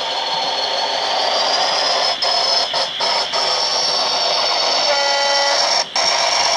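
Sound-fitted OO gauge model diesel locomotive: the decoder's diesel engine sound runs steadily with a high whine that slowly rises. It cuts out for a moment several times, and gives a short horn note about five seconds in.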